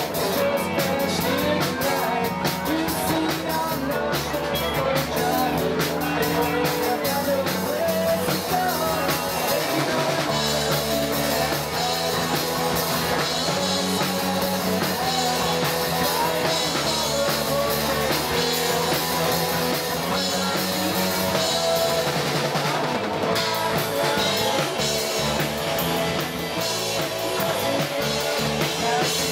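Live rock band playing a song: electric guitars, bass guitar and drum kit with a singer, loud and continuous.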